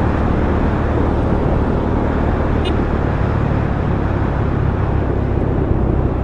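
Yamaha FZ-S V1 motorcycle's single-cylinder engine running steadily while riding, under a steady rush of wind and road noise.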